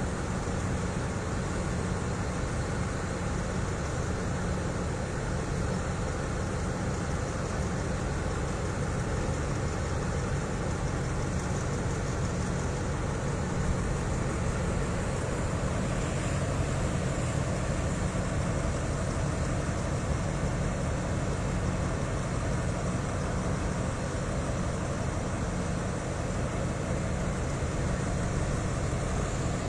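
Alsthom (ALS) diesel-electric locomotive standing with its diesel engine idling: a steady, even low hum.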